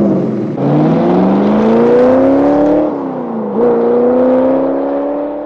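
Car engine revving. The pitch climbs for about two seconds, sags back, then jumps up and climbs slowly again as the sound grows quieter toward the end.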